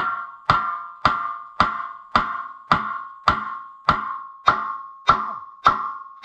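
Hammer blows on a steel tractor wheel rim in a steady rhythm, about two a second, each blow ringing out with a bell-like metallic tone, as a stuck rim fastening is knocked loose.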